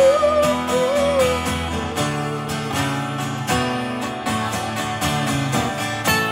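Live music: two acoustic guitars strumming chords. A held, wavering note rides over them for the first second and a half.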